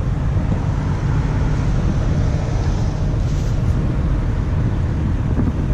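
Steady low rumble of road traffic, with wind buffeting the microphone.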